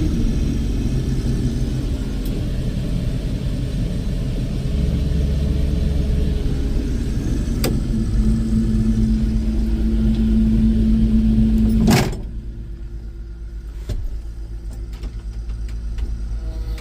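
Farm harvest machine's engine running, heard from inside the cab. There is a click about 8 seconds in, then a steady hum. A sharp click about 12 seconds in is followed by a quieter, duller sound with the engine still running underneath.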